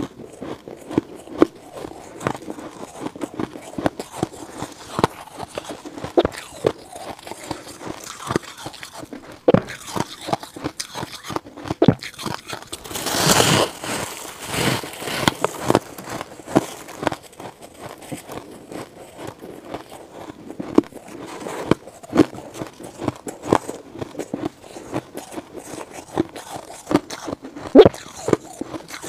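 Close-miked crunching and biting of frost-coated ice chunks: a run of sharp, irregular crunches, with one longer, louder crunch about thirteen seconds in.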